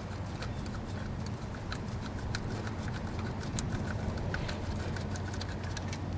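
Small, irregular clicks and taps as a gloved hand works at the thermostat housing and hose under a Honda D17 engine, over a steady low hum.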